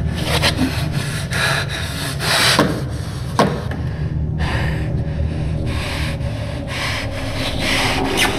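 Repeated scraping and rubbing of hands and body dragging along the floor of a narrow duct during a crawl, about two or three strokes a second with a short break about four seconds in, over a low steady hum.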